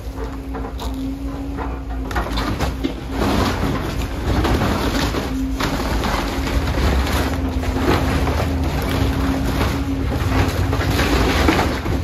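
Caterpillar tracked excavator's diesel engine running with a steady hum while its bucket rips into a wood-framed house. From about two seconds in there is a dense crackle of timber splintering and debris crashing down, heaviest near the end.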